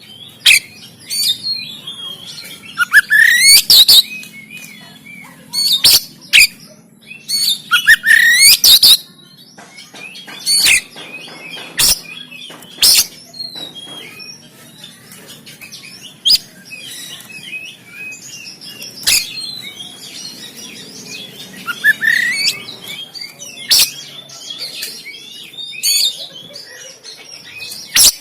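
Oriental magpie-robin singing in loud bursts of harsh, rapid notes and rising whistled sweeps every few seconds, with quieter twittering between the bursts.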